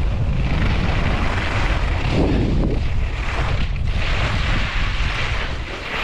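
Wind buffeting the microphone of a camera carried by a skier at speed, a heavy fluttering rumble, over the hiss of skis sliding on packed snow that swells and fades with the turns.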